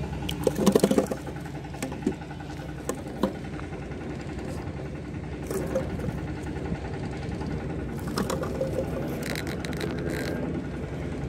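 An engine running steadily in the background. Over it come a few sharp knocks and clicks about a second in, and a short scratchy rattle near the end.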